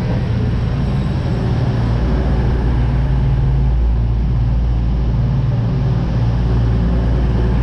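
Train running with a steady, loud low rumble.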